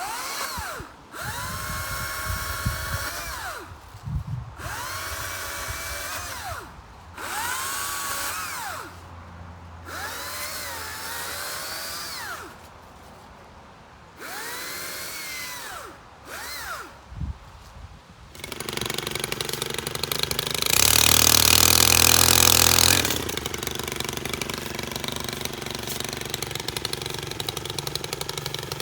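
STIHL MSA 200C battery chainsaw run in short trigger pulls, about seven times: each time the motor whine spins up, holds and winds down. About eighteen seconds in, a small gas engine starts running and is revved louder for a couple of seconds.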